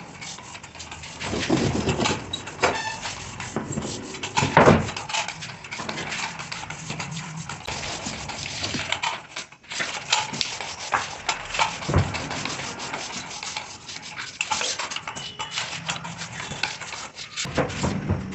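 Hand work on wood: irregular rubbing and scraping with scattered knocks and taps, the loudest knock about four and a half seconds in.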